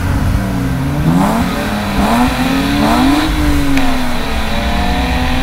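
Car engine revved several times in quick succession, the pitch climbing with each rev over a steady low rumble, then easing back and holding a fairly even note.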